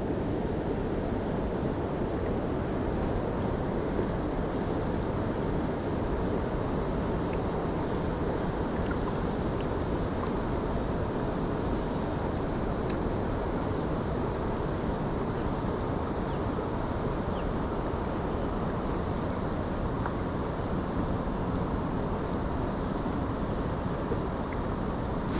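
Steady rushing of wind and water as a kayak travels downriver, with a faint steady high whine over it and a short knock at the very end.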